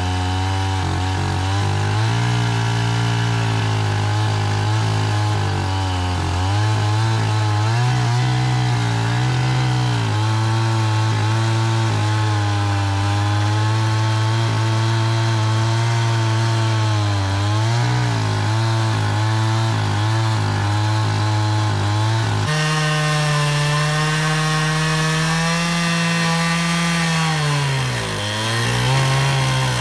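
Husqvarna 395XP chainsaw with a 36-inch bar on an Alaskan chainsaw mill, running at high throttle while ripping a log lengthwise. The engine note holds steady under load, with brief dips in pitch that recover; about two-thirds through it jumps abruptly to a higher note.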